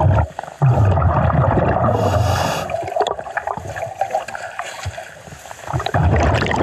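A scuba diver breathing underwater: the exhaled air bubbles out of the regulator in gurgling, rumbling bursts, one about two seconds long early on and a shorter one near the end.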